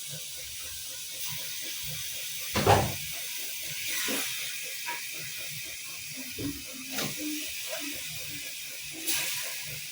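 Pot of duck stew steaming and simmering on the fire, a steady high hiss, with a few small knocks and a short voice sound about three seconds in.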